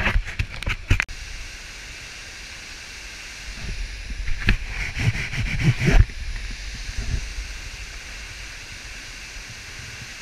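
Steady rushing hiss of a waterfall echoing in a narrow rock gorge. Over it come knocks and low bumps from a handheld action camera being jostled, in the first second and again from about three and a half to six seconds in.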